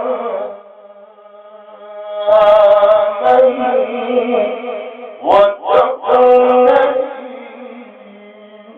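A man's voice reciting the Quran in a melodic, chanted style with long held notes and ornamented pitch turns. One phrase trails off just after the start, a new phrase begins about two seconds in, and it fades near the end.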